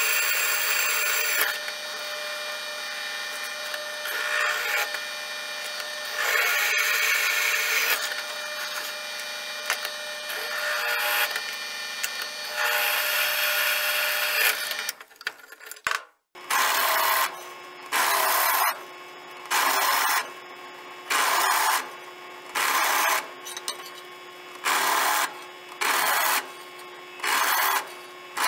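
Drill press running with a twist bit cutting through the steel tang of a kukri made from a farrier's rasp, drilling the handle pin and lanyard holes. After a brief break about halfway, the cutting comes in spells about a second long, roughly every second and a half.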